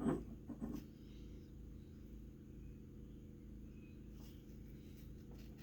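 A faint steady low hum, as from mains-powered equipment, with a few soft knocks in the first second.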